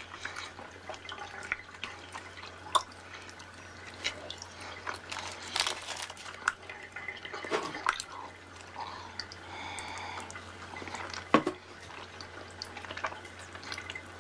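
Wet eating sounds and bathwater in a tub: many short sharp clicks and small drips and splashes as a chocolate bar is chewed and bathwater moves, over a faint steady low hum.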